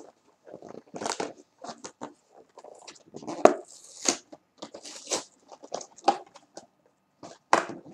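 A cardboard box and its paper packaging being torn and pulled open by hand: irregular crinkling, rustling and tearing, with a sharp crackle about three and a half seconds in.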